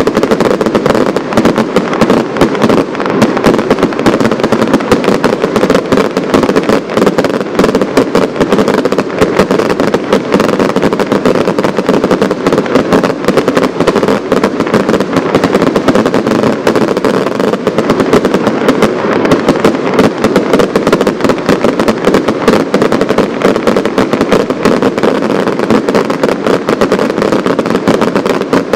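Professional fireworks display going off: a dense, unbroken run of rapid bangs and launch reports, many a second.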